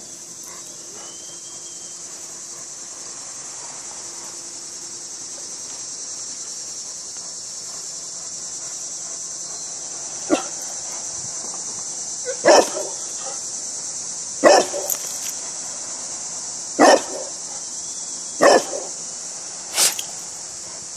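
A bullmastiff barking: single barks, about six of them spread over the second half, roughly every two seconds.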